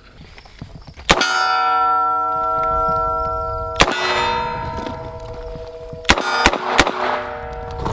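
Rock Island Armory Model 206 .38 Special revolver firing at steel targets. Each sharp crack is followed by the steel plate ringing with a clear, lingering tone: one shot about a second in, another near four seconds, then a quick string of cracks about six seconds in.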